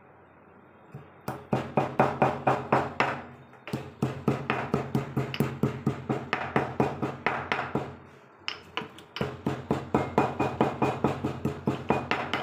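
Pestle pounding in a small mortar, crushing tulsi leaves, black pepper and cloves: quick, even knocks, about five a second. They start about a second in and come in three runs, with short breaks twice.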